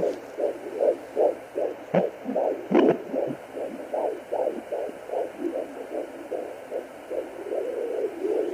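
Pocket fetal doppler sounding a fetal heartbeat as a fast, regular whooshing pulse, nearly three beats a second, with two sharp knocks about two and three seconds in.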